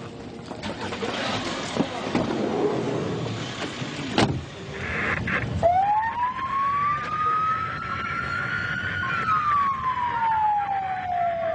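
Ambulance siren wailing, heard from inside the ambulance. It sounds a little over halfway in, rising slowly in pitch, then falling and starting to rise again near the end. Before it come knocking and rustling, with one sharp knock shortly before the siren starts.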